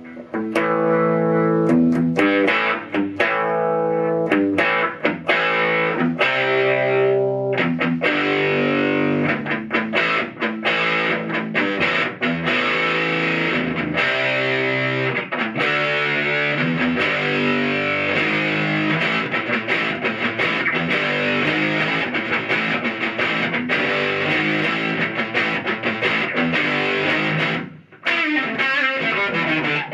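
Electric guitar played through the Stomp Box Fuzz pedal's High Tops channel on its first circuit, an Insomnia-style fuzz. Distinct fuzzy chords at first, then thicker sustained fuzz from about eight seconds in, with a brief break near the end.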